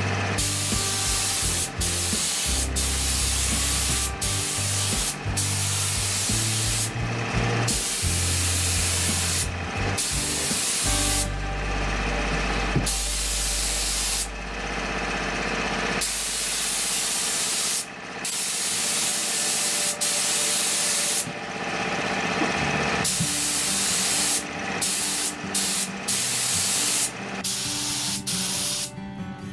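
Compressed-air paint spray gun, set to 32 PSI, hissing in repeated bursts that start and stop with each pull of the trigger.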